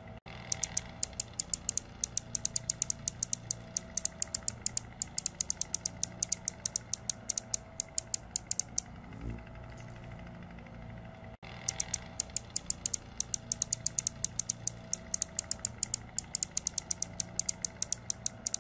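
Male Anna's hummingbird singing: long runs of rapid, high, scratchy ticks, several a second, pausing for a couple of seconds near the middle before starting again.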